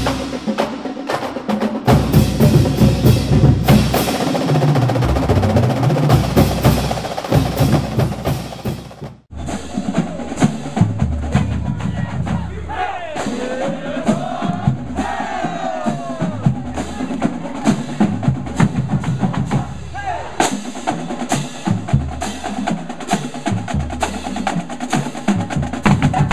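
Marching band drumline playing a cadence: rapid snare drum strokes and rolls over bass drums, with an abrupt cut about nine seconds in, after which the drumming picks up again with sousaphones heard for a stretch in the middle.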